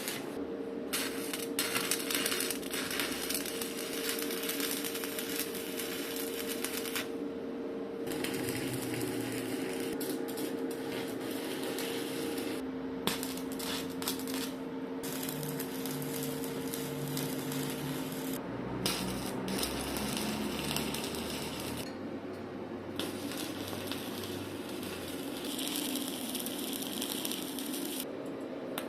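Electric arc welding crackling and sizzling in several runs, each broken off by a brief pause as the arc is stopped and struck again, over a faint steady hum.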